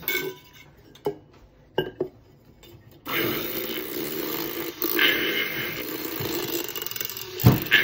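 Bean Envy handheld milk frother: a few light knocks of the whisk against the stainless tumbler, then about three seconds in it is switched on and whirs steadily in the milk inside the tall tumbler, with one loud thump near the end.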